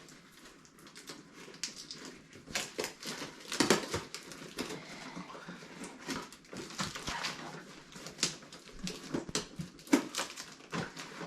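Plastic packaging being worked open by hand: irregular clicks, snaps and crinkles, with no steady rhythm.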